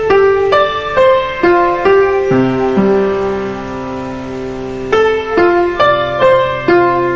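Background piano music: single notes struck about two a second, held for a couple of seconds in the middle over a low bass note, then resuming.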